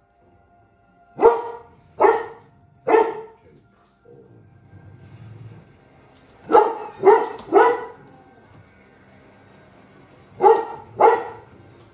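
Giant schnauzer barking in three bursts: three barks, a pause, three quick barks, a pause, then two more.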